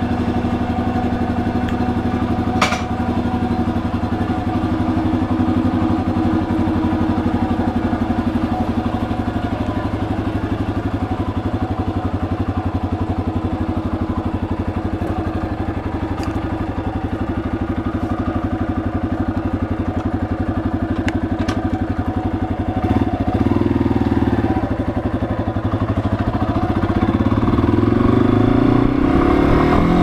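Yamaha XT250's air-cooled single-cylinder four-stroke engine idling steadily, with one sharp click about three seconds in. Near the end the engine revs up, rising in pitch as the bike pulls away.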